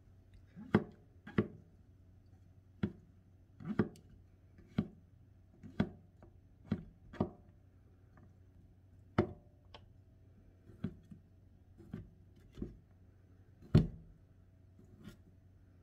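Chef's knife slicing mushrooms and then sausage on a plastic cutting board. The blade knocks on the board in separate, irregular strokes, roughly one a second, and the loudest comes near the end.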